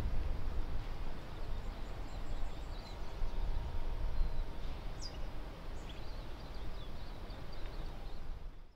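Outdoor harbour ambience: a steady, rough low rumble, with faint scattered bird chirps high above it. It cuts off abruptly near the end.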